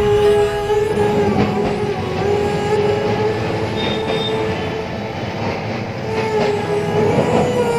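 An electric city tram running on its rails: a rumble with a steady whine that wavers slightly in pitch.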